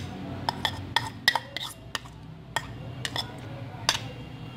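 A metal spoon clinking and scraping against bowls in a quick, irregular series of sharp taps as chopped fenugreek and coriander leaves are scraped out into flour.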